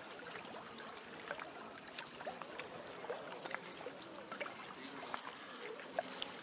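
Small lake waves lapping against the shore and the wooden posts of a jetty: a steady wash with many small irregular plops and splashes.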